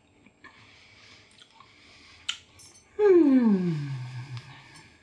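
A sharp clink of cutlery, then a long drawn-out 'mmm' of appreciation while tasting the food, sliding steadily down in pitch over about a second and a half.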